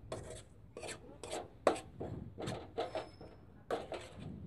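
Metal spatula scraping and turning dry powdered mustard oilcake in a kadai, about two rasping strokes a second: the powder is being stirred continuously while it dry-roasts on a low flame so it does not catch and burn.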